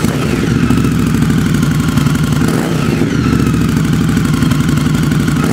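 Indian Scout Bobber's liquid-cooled V-twin idling steadily through its twin exhausts.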